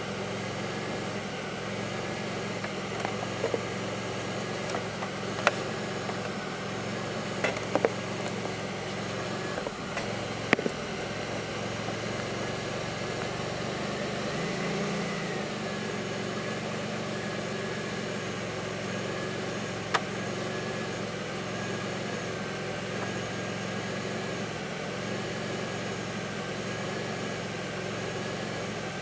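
2002 Pontiac Grand Prix's 3800 V6 idling with a steady hum and a faint wavering whine, an engine the owner reports idles rough and bogs. The engine note swells briefly about halfway through, and a few sharp clicks come in the first ten seconds and once more later.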